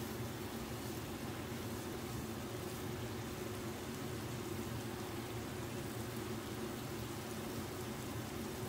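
Stir-fry of long beans, carrot and tofu sizzling steadily in a frying pan, with a steady low hum underneath.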